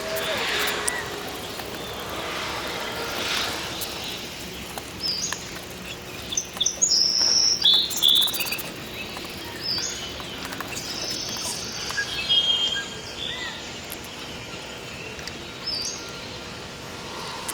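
Small birds chirping: short, high chirps in irregular clusters, busiest in the middle, over a steady outdoor background hiss.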